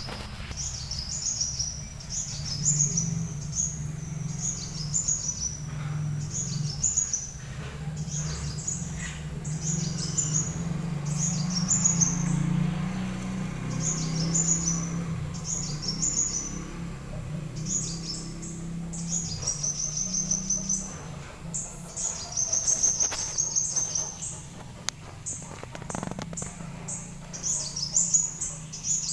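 Small songbird repeating short, high chirping phrases of quick notes about once a second, with a couple of longer trills in the later part. A steady low hum runs underneath.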